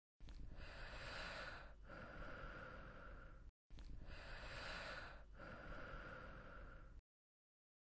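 Faint, heavy breathing, heard twice in a row, the second time a copy of the first. Each is a long, hissy breath in two parts with a short break between them, and each cuts off abruptly.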